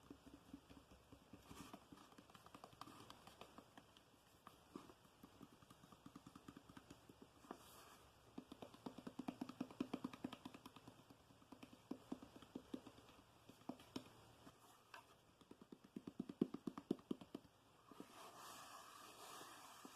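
Quiet ASMR fingertip tapping on a surface, in fast runs of soft taps that grow denser and louder twice, with a soft hiss near the end.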